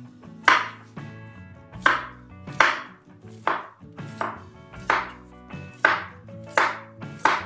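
Kitchen knife chopping unripe plantain into cubes on a wooden cutting board: about nine sharp knocks of the blade on the board, a little under one a second.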